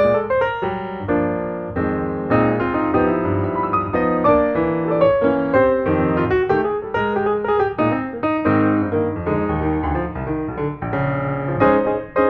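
Background music: a piano playing a busy run of notes.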